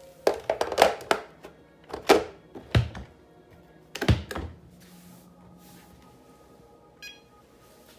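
Plastic dustbin of a robot vacuum pushed back into its slot with a run of clicks and knocks, then a knock as the lid is pressed about four seconds in. A faint steady motor whine follows, with a short electronic beep near the end.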